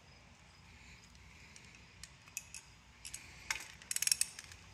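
Socket ratchet wrench being fitted and worked on a bolt: scattered light metal clicks, with a quick run of clicks about three and a half seconds in.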